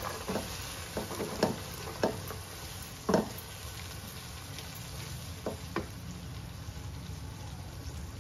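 Green peas being stirred into a sizzling masala in a nonstick wok with a silicone spatula: a steady sizzle broken by several short knocks and scrapes of the spatula against the pan, most in the first three seconds, the loudest a little after three seconds in, and two more near six seconds.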